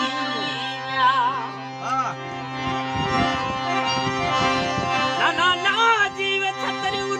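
Male folk singer performing a Sindhi kalam in Manganiyar style over a harmonium's steady held reed chords, his voice coming in with ornamented, wavering phrases about a second in and again near the end. Hand drum strokes join in the middle.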